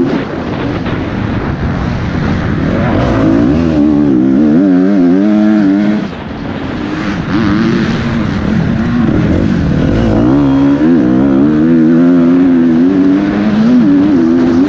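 KTM 250 SX-F four-stroke motocross engine heard from on board at race pace, its revs rising and falling constantly through gear changes and bumps, with wind rushing over the microphone. The throttle is shut briefly about six seconds in, then the engine picks up again.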